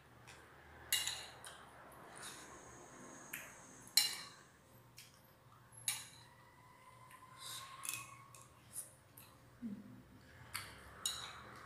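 Metal spoon clinking and scraping against a ceramic bowl while eating, in irregular light taps, the sharpest about four seconds in.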